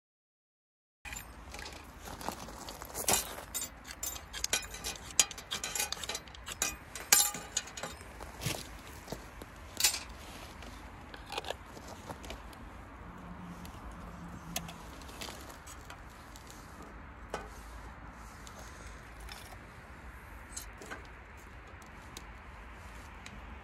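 Sharp clicks and clinks of kindling sticks being handled in a stainless-steel fire pit for about ten seconds. After that, a newly lit kindling fire crackles steadily with scattered small pops.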